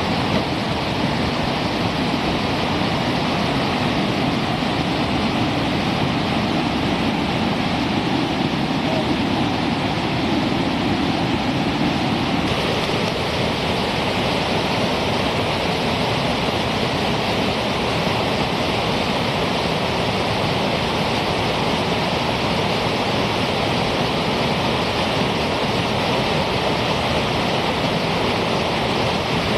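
Steady rush of whitewater rapids pouring over rocks, with a shift in its tone about twelve seconds in.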